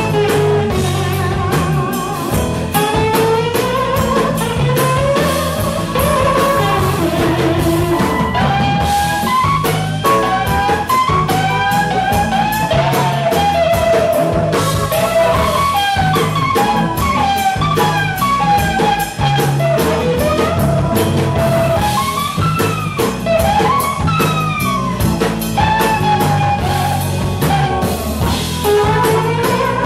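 Live blues band playing an instrumental break: an electric guitar lead with many bent notes over bass guitar, drum kit and keyboard.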